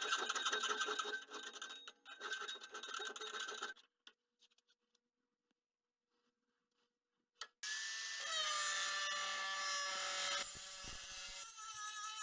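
A hand saw or file working hard saw-blade steel. About four seconds of rough back-and-forth scraping strokes come first. After a few seconds of quiet there is a click, then a steadier scraping with a squealing, ringing tone.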